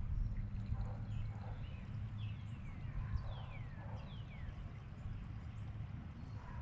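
Gasoline being poured from a gas can into a pressure washer's engine fuel tank. Several faint high chirps falling in pitch come in the middle.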